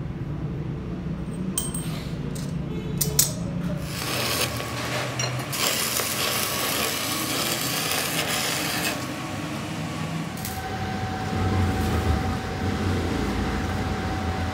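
Stick-welding arc crackling and hissing steadily for about five seconds as weld metal is built up on a worn truck front-wheel spindle, after a few sharp clicks. Later a steady hum with a faint whine.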